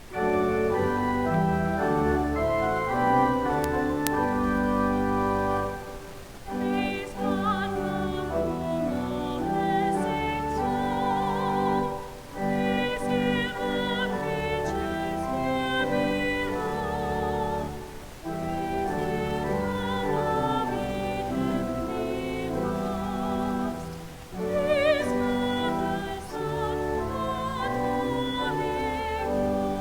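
Church music: a classical-style solo voice singing with vibrato over keyboard accompaniment, in phrases with short breaks between them.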